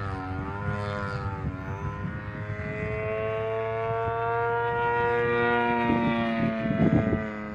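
Radio-controlled model airplane engine running in flight, its pitch wavering up and down at first, then holding a long note that slowly sags as it grows a little louder. The sound drops away near the end, with a few low thumps.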